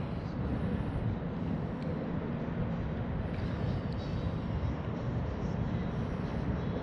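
Steady low rumble of wind buffeting the microphone of a camera mounted on a kayak's bow, with no distinct events.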